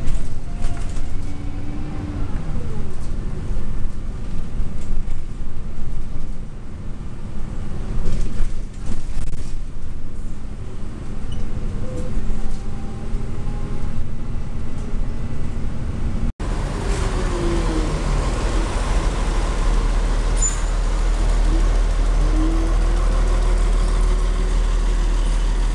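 Hino HU3K city bus engine running as the bus drives, heard from inside the cabin, its pitch rising and falling. After a sudden cut about two-thirds in, a steadier, deeper engine rumble from the bus.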